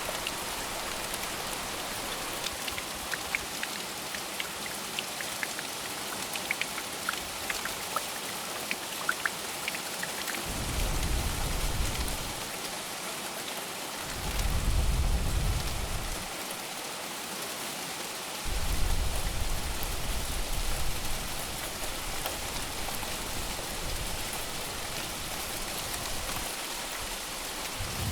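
Steady heavy rain, with single drops ticking close by in the first part. Three deep rumbles of thunder, each a few seconds long, swell up and fade in the middle.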